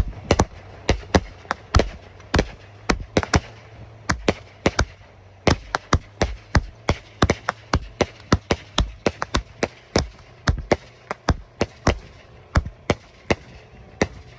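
Fireworks going off: dozens of sharp bangs at uneven spacing, several a second, varying in loudness.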